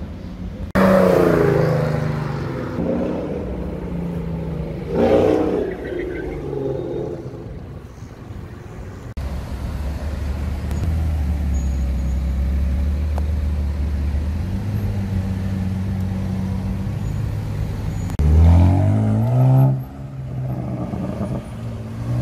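Supercar engines being revved and driven: loud revs that rise and fall about a second in and again near five seconds, a long steady low engine drone through the middle, and a hard rising acceleration near the end.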